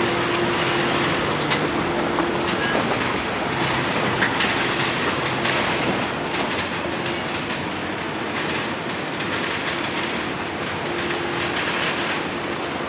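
Steady loud vehicle noise with a humming drone and scattered clicks, the hum fading out a few seconds in and returning near the end.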